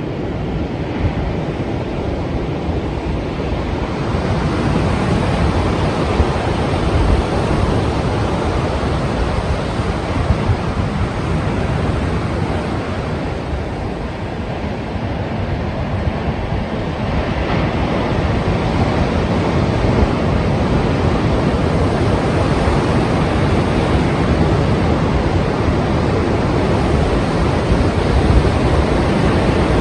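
Strong sea surf breaking without pause, a dense rushing of water that swells and eases as the waves come in, with wind.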